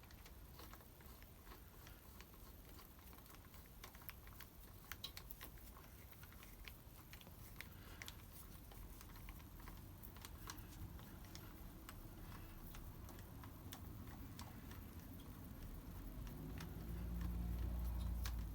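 Faint scattered clicks and small metallic ticks as the clutch case cover bolts are run in by hand until they just touch, with a low hum coming up near the end.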